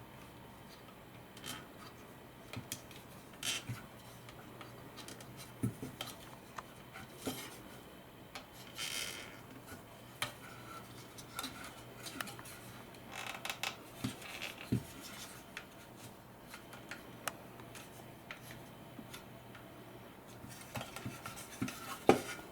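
Scattered light clicks and short scrapes of plastic parts and wiring being handled, as the connectors inside a Dyson V10 vacuum's handle are pushed under its circuit board.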